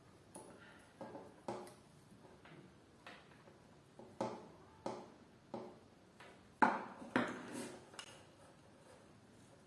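Irregular light clicks and taps of small hard objects being handled, about a dozen in all, with the loudest pair about two-thirds of the way through.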